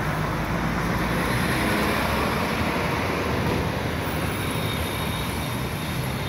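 Steady rush of road traffic, swelling a little a couple of seconds in.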